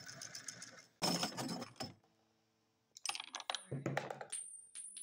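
Homemade benchtop lathe running as a twist drill bores into spinning brass stock, cut off suddenly about a second in. After that come short bursts of clicking and clattering metal parts, a brief near-silent gap, and more irregular clicks and knocks with a thin high tone near the end.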